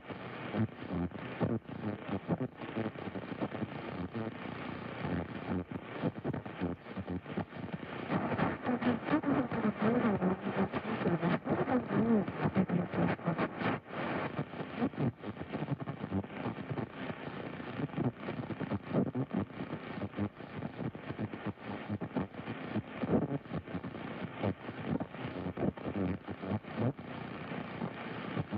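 AM radio tuned to 1020 kHz hissing and crackling with static, with garbled, wavering chatter from adjacent AM stations bleeding through ("monkey chatter"). It grows louder and busier from about eight to fourteen seconds in.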